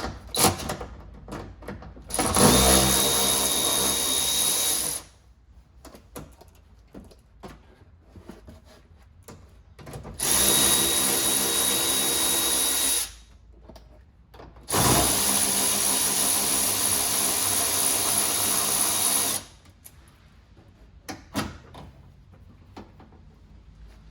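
Power drill running in three bursts of a few seconds each, spinning out the bolts that hold a car's power-antenna motor, with small clicks of handling between runs.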